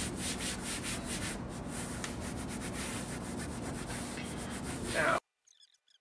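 Hand sanding on the edge of a laminate-covered wooden panel: quick, steady back-and-forth rubbing strokes that cut off abruptly about five seconds in.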